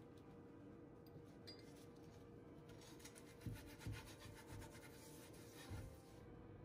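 A brush spreading oil over the surface of a cast-iron skillet: faint, rapid back-and-forth scraping strokes, with a few soft low knocks against the pan in the second half.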